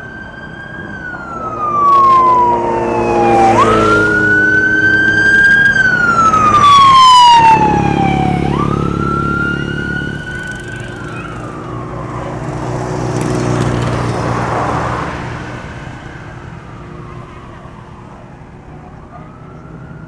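Sirens on the race's police escort vehicles wailing as they drive past: each call jumps up and then slides slowly down, repeating about every five seconds. Engine and road noise swell as vehicles pass, loudest about seven seconds in and again around fourteen seconds.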